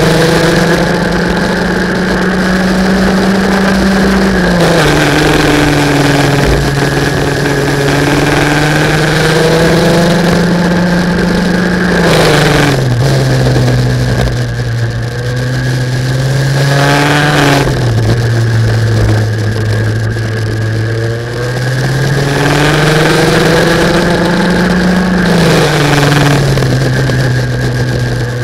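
Racing kart engine running hard through a lap, the sound taken from the kart itself. Its pitch climbs slowly along the straights, then drops sharply about four times as the throttle comes off for the corners.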